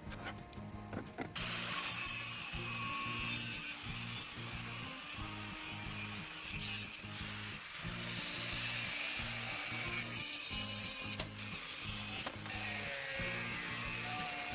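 A workshop tool cutting or grinding metal, a harsh rasping noise that starts about a second and a half in and carries on with brief dips, over background music with a steady beat.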